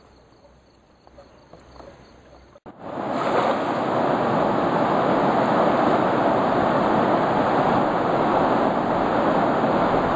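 Faint insect chirring for about two and a half seconds. Then, after a sudden cut, a steady rush of river water running through a shallow, rocky riffle.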